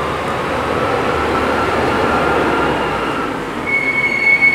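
Heavy rain and traffic on a wet road, with a car's tyres hissing as it passes. Near the end, a high-pitched steady tone sounds for about a second.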